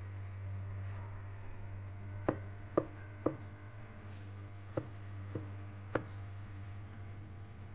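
Knife slicing garlic cloves on a cutting board: six sharp chops, three in quick succession about two seconds in, then three more spaced out.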